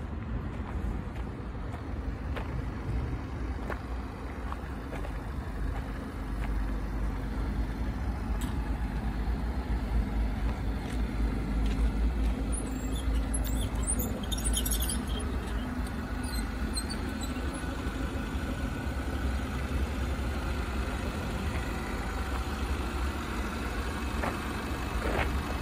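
Citroën Jumper's 2.0 BlueHDi four-cylinder turbodiesel idling steadily.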